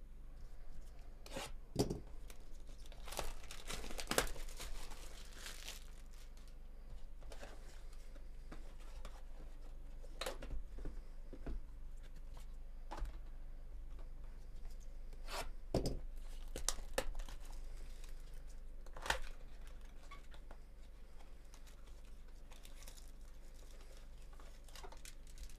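Cellophane wrap being torn off a cardboard trading-card hobby box and the box being handled and opened. A cluster of ripping and crinkling comes in the first few seconds, then scattered sharp crinkles and cardboard clicks.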